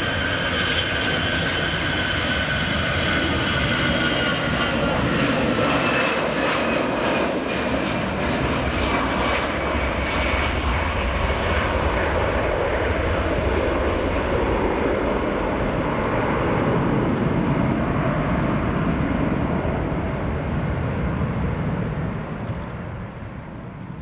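Airbus A320-214 jet airliner's CFM56-5B turbofans at takeoff thrust through the takeoff roll, liftoff and climb-out. A steady roar carries a high engine whine that falls slowly in pitch over the first ten seconds, and the sound fades near the end as the jet climbs away.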